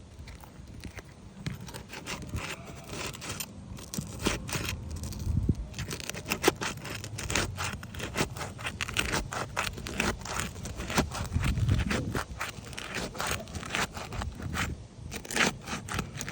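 Asphalt roof shingles being pried loose with a flat roofing tool to break their adhesive seal: many short scraping, crackling strokes, sparse at first and coming thick and fast from about six seconds in.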